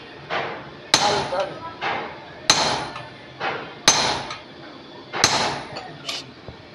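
A hammer striking metal during clutch plate repair work: four loud, ringing blows about a second and a half apart, with a softer blow between each pair.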